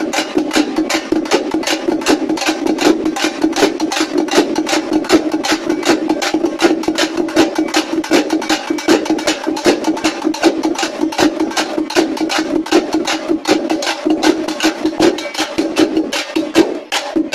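An ensemble of tappeta and dappu drums, struck with sticks in a fast, dense, unbroken beat, with the drumheads ringing at one steady low pitch. The beat thins briefly just before the end.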